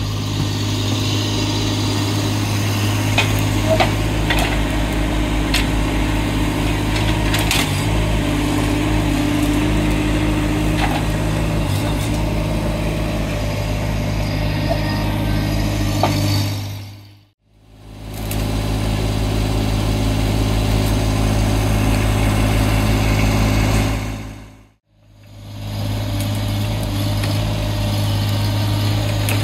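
Engine of a stand-on mini track loader running steadily, with a few sharp cracks and snaps between about 3 and 12 seconds in. The sound briefly fades out twice, near 17 and 25 seconds in.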